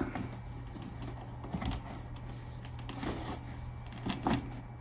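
Cotton drawstring boot bag rustling as it is loosened and a leather boot is slid out of it, with a few soft clicks and knocks of handling.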